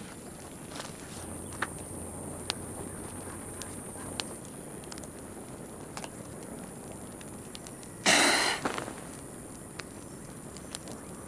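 Outdoor rural ambience: a steady high insect buzz that swells for a few seconds early on, with scattered light ticks and steps. About eight seconds in there is a single loud, rushing burst lasting under a second.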